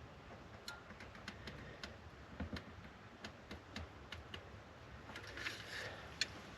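Faint, irregular clicks of a caulking gun being squeezed over and over. The sealant cartridge is nearly empty and no sealant comes out.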